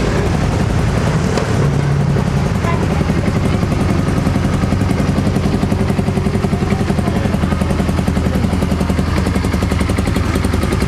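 Small ATV engine idling steadily, a fast, even pulsing.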